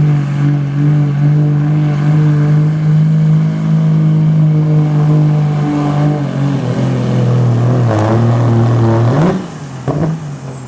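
Dodge Ram diesel pickup pulling a weight-transfer sled at full throttle, a steady drone that sags lower in pitch as the sled bogs it down about seven seconds in. Near the end the engine flares up briefly, then falls away as the throttle comes off, and a high whine sweeps down in pitch.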